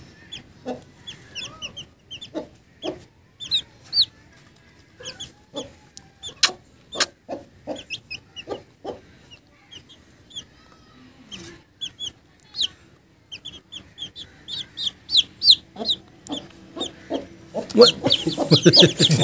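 Small Aseel chicks peeping in a hand: many short, high chirps in quick succession, with a few sharp clicks mixed in. The peeping grows louder and busier near the end.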